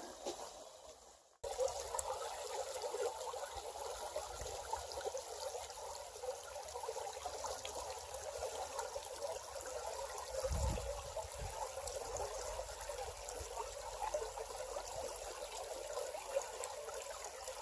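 Creek water trickling and babbling over rocks, a steady flowing sound, with one brief low bump about ten seconds in.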